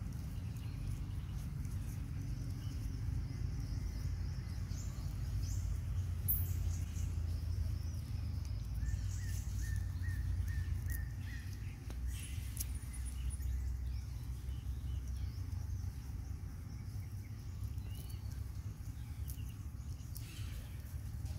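Outdoor ambience of a steady low rumble, with faint bird chirps now and then, including a quick run of short chirps about ten seconds in.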